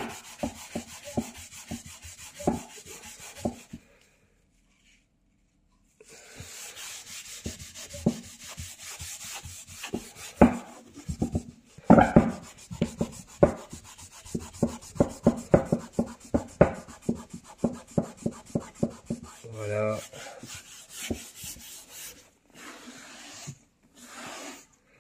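A cloth soaked in isopropyl alcohol is rubbed hard back and forth over a white chair's surface to scrub off stains, in quick regular strokes. The rubbing pauses for about two seconds a few seconds in, then resumes.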